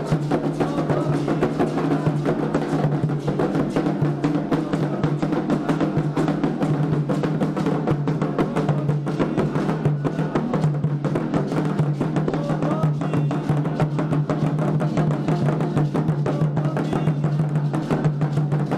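Candomblé atabaque drums played in a fast, steady, unbroken rhythm.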